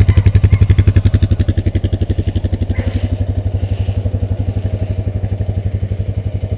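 Honda Rancher 420 ATV's single-cylinder four-stroke engine idling, an even low chugging of about eleven beats a second.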